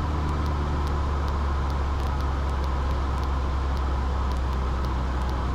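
Steady drone of a Cessna 172's piston engine and propeller, heard inside the cockpit.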